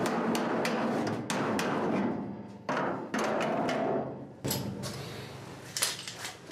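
Hammer-and-dolly work on a 1966 Mustang's replacement steel quarter panel: a body hammer strikes the sheet-metal wheel-arch lip against a steel dolly, about three sharp metallic blows a second. After about two seconds the blows stop, and a few single strikes follow.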